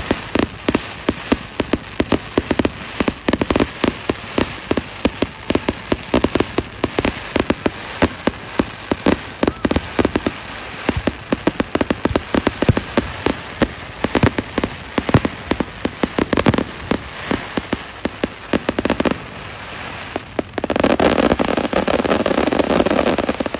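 Bonfire Night fireworks going off: a continuous rapid run of sharp pops and bangs, merging near the end into a louder, dense crackle.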